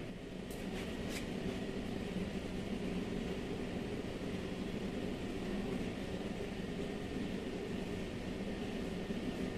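Steady mechanical hum with a few low, even tones, like a running fan. Two faint clicks about half a second and a second in, from the metal window regulator parts being handled in the car door.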